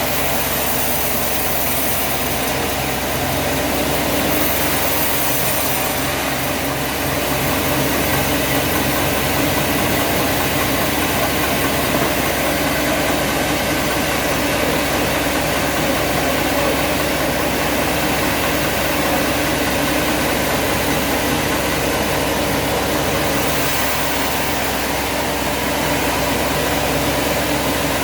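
A heavy engine running steadily at an even speed, with no change in pace.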